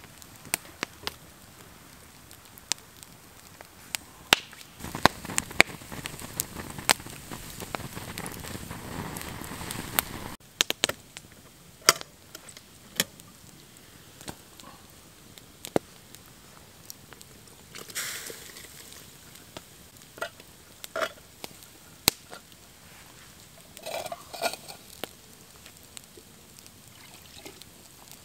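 Wood campfire crackling and popping, with sharp snaps scattered throughout. A steady hiss runs for about five seconds, starting about five seconds in.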